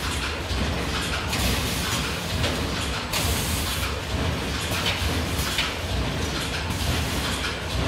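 Brochure saddle-stitching line running: a TB flex S 204 automatic stitcher feeding a palamides gamma502pro stacking delivery. A steady mechanical clatter over a low hum, with a regular beat about once a second as the line cycles.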